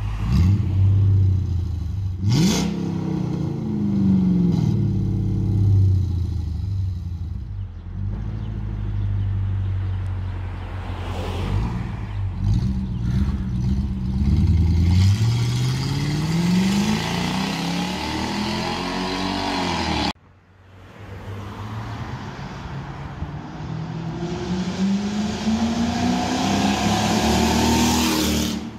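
Mercedes-Benz ML55 AMG's 5.4-litre V8 revving repeatedly through its new exhaust, the pitch sweeping up and falling back with each blip. After a sudden cut about twenty seconds in, the engine note climbs steadily as the SUV pulls away past the camera.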